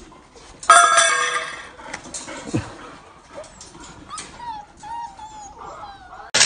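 Golden retriever puppies whining and whimpering: one loud, high cry about a second in, then a string of short, thin whines that rise and fall.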